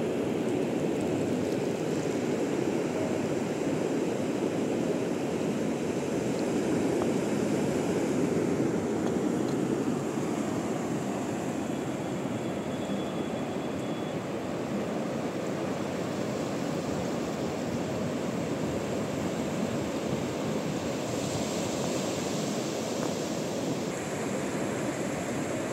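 Sea surf on a sandy beach: waves breaking and washing up over the sand in a steady rush, swelling a little around the middle.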